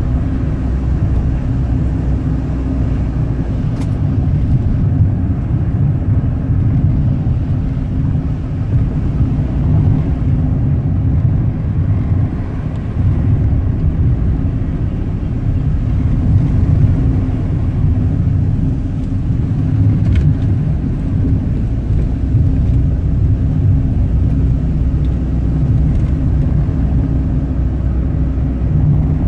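Car driving: a steady low rumble of engine and road noise with a constant hum running under it.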